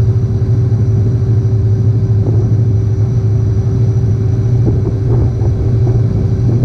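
Farm vehicle engine running steadily at a constant speed: an even low drone with a steady higher hum over it.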